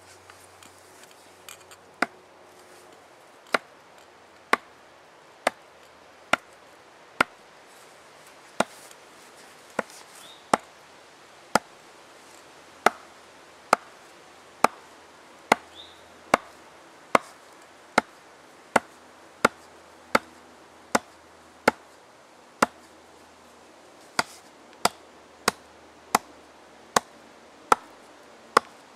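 A small Wetterlings axe chopping into the end grain of a log round, with sharp strikes about once a second as it chips out a divot for the coals that will burn out a bowl.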